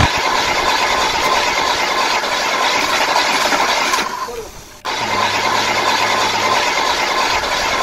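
Hard plastic toy-truck wheels rolling over a rough road surface as the toys are pulled along on a string, a steady grinding noise. It fades about four seconds in and cuts back in abruptly just under a second later.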